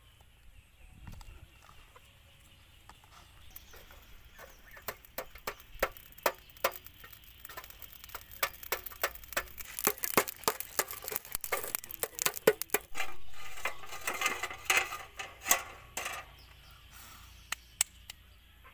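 Charcoal being stirred with a stick in a metal barbecue grill: a long run of sharp clinks and knocks, thickest in the middle, followed by a few seconds of denser scraping and rattling.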